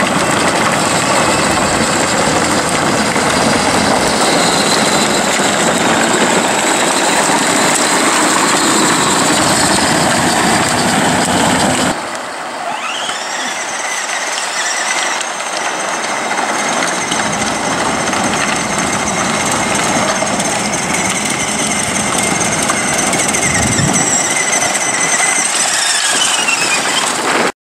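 Battery-powered ride-on toy vehicles running along rough asphalt: a loud, steady whirring and rumbling with faint high squeals. It drops a little about twelve seconds in.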